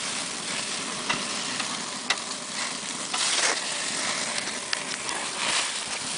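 Hamburger patties and dripping grease sizzling over open flames on a grill, a steady hiss with scattered sharp pops. It swells louder twice, a little past three seconds in and again about five and a half seconds in.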